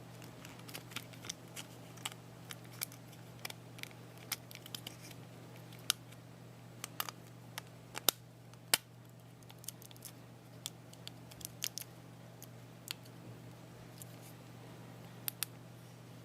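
Scattered sharp clicks and taps of small hard objects being handled, irregular and a few each second, the loudest two about eight and nine seconds in. A steady low hum runs underneath.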